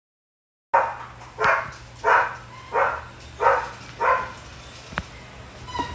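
A dog barking repeatedly, about six barks in steady rhythm, starting suddenly out of silence under a second in, with a sharp click near the end.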